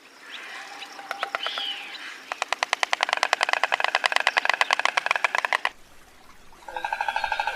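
Stork clattering its bill: a rapid, even run of dry clacks lasting about three seconds, starting about two seconds in, after some fainter chirping calls.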